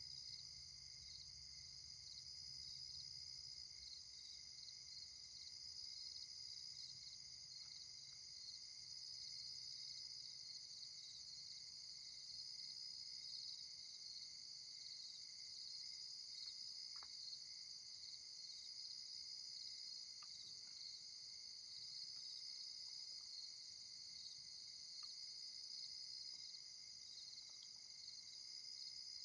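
Steady night chorus of crickets and other insects, a continuous high trilling that does not let up. A faint low rumble underneath fades away in the first several seconds.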